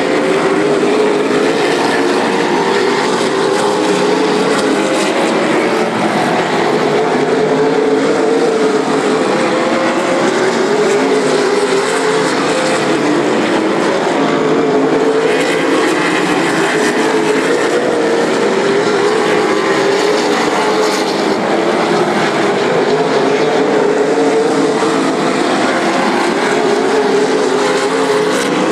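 Late model stock cars racing on an oval, their V8 engines running together in a loud, steady drone whose pitch wavers up and down as the cars come around.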